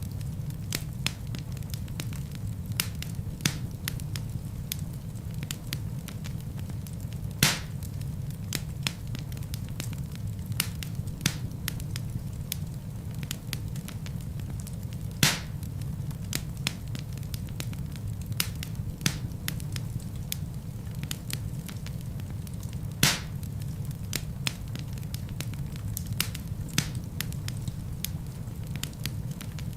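Wood logs burning in a fireplace: a steady low rumble of flames with frequent small crackles, and a louder pop about every eight seconds.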